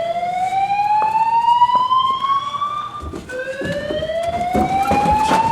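Fire alarm sounding a whoop tone: a pitch climbing slowly over about four seconds, breaking off about three seconds in and starting again low. Scattered knocks in the second half.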